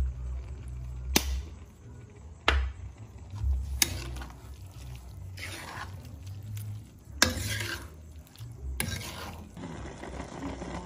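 Metal spatula stirring and scraping wet silverfish in a stainless steel wok, with several sharp clinks of the spatula against the pan.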